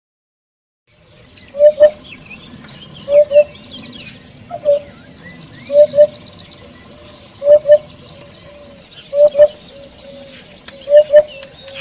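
After about a second of silence, a bird starts a low two-note call, repeated seven times about every one and a half to two seconds. Behind it, many small birds chirp continuously.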